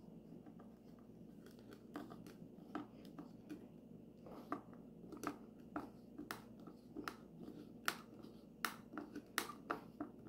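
A hand screwdriver driving a screw through a metal mounting bracket into a wooden plaque: faint, irregular clicks and creaks as the screw turns and bites, coming more often and louder near the end.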